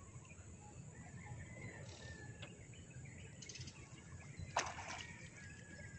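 Quiet open-air ambience with a few faint bird chirps. About four and a half seconds in, one brief sharp noise stands out, most likely from the net and boat being handled.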